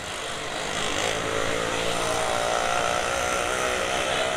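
A passing motor vehicle's engine running, growing louder about a second in and then holding steady.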